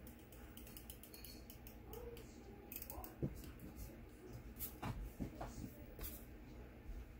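Quiet desk work with planner supplies: scattered light clicks and taps of paper and small plastic tools being handled, about a dozen in a few seconds.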